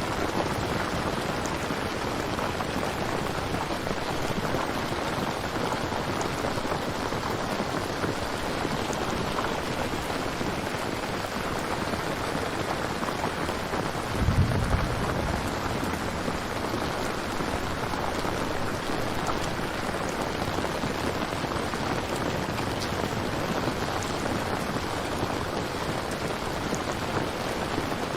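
Steady rain falling, a constant even hiss of drops, with a brief low rumble about halfway through.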